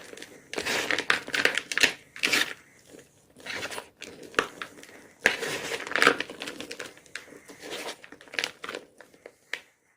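Gym chalk being crushed and crumbled by hand in irregular crunchy bursts with short pauses between, stopping abruptly near the end.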